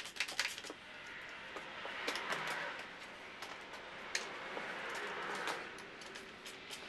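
Ratcheting screwdriver clicking in short runs as a screw is driven into a wooden table leg, with a soft rushing noise in between.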